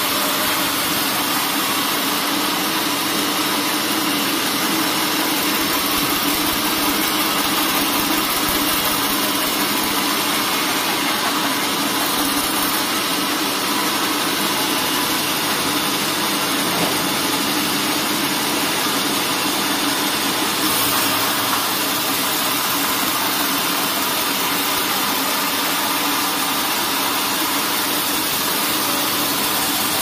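Carriage band sawmill running steadily, its band blade sawing lengthwise through a log.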